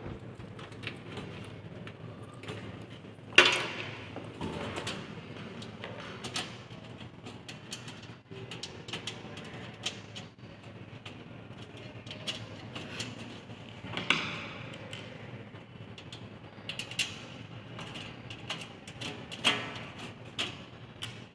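Metal and plastic parts of a desktop computer case being handled and fitted: irregular clicks, knocks and scrapes, the loudest knock about three and a half seconds in.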